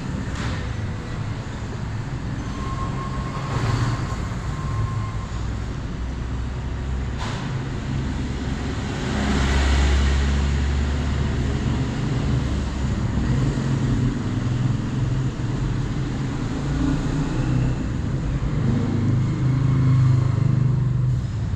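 Steady low rumble of motor vehicle engines, swelling about nine seconds in and again near the end.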